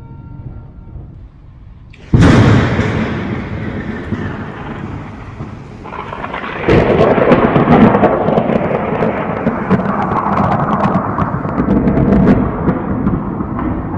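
Thunder: a sudden loud crack about two seconds in that rolls away, then a second, longer rumble from about seven seconds with crackling through it.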